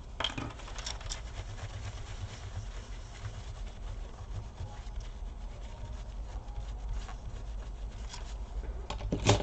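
Scraping and rubbing at old laptop thermal paste that has hardened like concrete, with scattered small clicks over a steady low hum and a sharper knock near the end.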